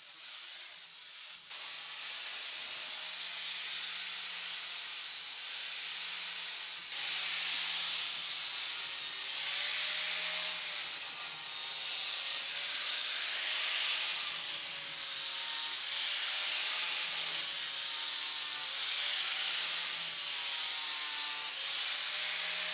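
Angle grinder grinding down the welded corners of a steel guitar body: a steady, harsh grinding hiss, with the motor's pitch wavering slightly under load. It grows louder about a second and a half in and again around seven seconds, and changes abruptly every few seconds.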